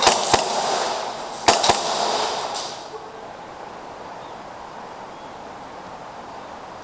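Gas airsoft pistol shots: four sharp cracks in two quick pairs about a second and a half apart, over a rushing noise that dies away after about three seconds.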